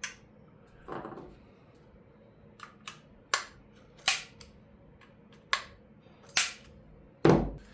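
A series of sharp clicks and taps, about half a dozen spaced irregularly, then a heavier knock near the end: hard parts and a tool being handled while the hanger's screws are tightened.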